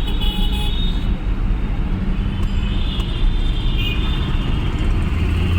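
Heavy city road traffic heard from a moving vehicle in its midst: steady engine and road noise with other vehicles all around.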